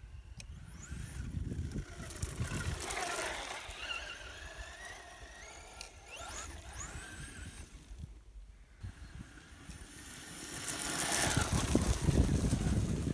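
Brushless electric motor of a Tamiya Super Levant RC truck whining up and down in pitch as the throttle is worked, its wheels spinning with little traction on wet grass. A louder rushing noise builds near the end.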